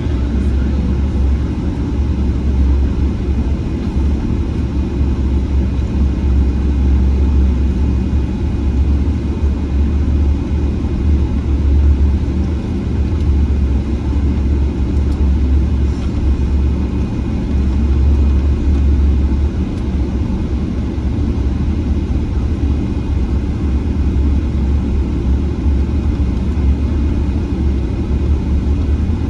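Steady low rumble inside the cabin of a Boeing 777-300ER on the ground, its GE90 engines running at low power, with a faint steady whine above the rumble.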